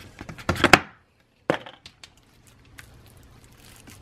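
A plastic-wrapped makeup palette being handled on a hard tabletop: a quick cluster of sharp knocks and clicks in the first second, another knock about a second and a half in, then faint light ticks.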